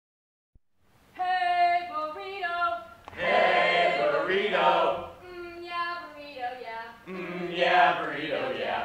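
Call-and-response chant: a single female voice calls out a chanted line and a group of voices shouts it back in unison, twice over. It starts about a second in.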